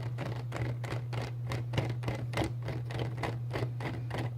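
3D-printed plastic screw jack being turned, its printed screw and threads making a run of small dry clicks and scrapes, a few each second, over a steady low hum.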